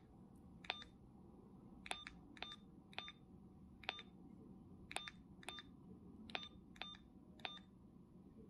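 Faint, short beeps and clicks from the keypad of a T12 dual-mode 4G-LTE/UHF walkie-talkie as a phone number is keyed in. There are about ten presses at an uneven pace, roughly two a second.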